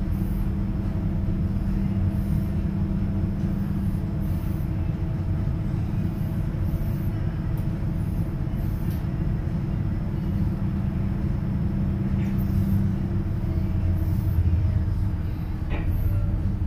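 Towboat's diesel engines running with a steady low drone, heard from inside the pilothouse while it pushes a tow of coal barges.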